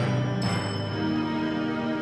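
Indoor percussion ensemble playing a slow passage of held chords, with a new chord entering at the start and another about half a second in.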